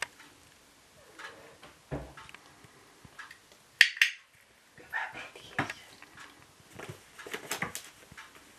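Handheld training clicker giving one sharp double click about four seconds in, as a kitten touches the target stick: the marker for the right behaviour. Faint small knocks and rustles of the kittens moving on the chair around it.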